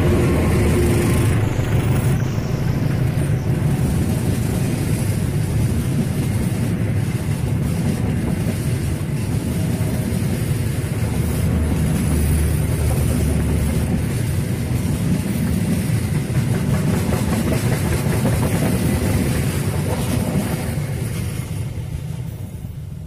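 Passenger train's carriages rolling past on the rails, a loud steady rumble of wheels on track. It fades away near the end as the last coaches recede.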